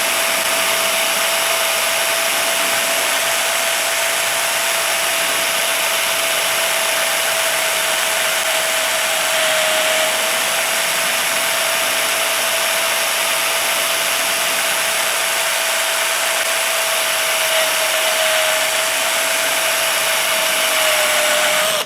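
Electric drill spinning a buffing pad against an aluminum piece, a steady whine over a dense hiss. The pitch sags slightly a few times as the pad is pressed, and the drill stops abruptly at the end.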